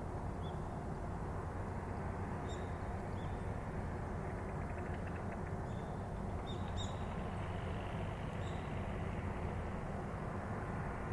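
Steady low background rumble with brief, high bird call notes scattered through it, several close together about six to seven seconds in.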